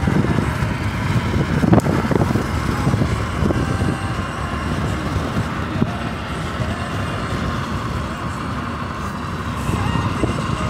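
Steady road and engine noise of a moving car, heard from inside the vehicle, with a brief knock about two seconds in.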